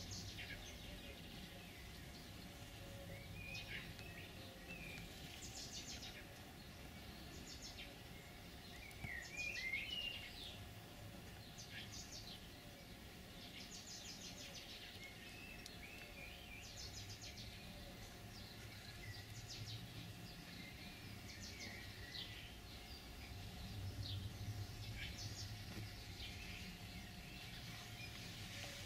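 Quiet outdoor ambience: small birds chirping on and off, over a low steady rumble.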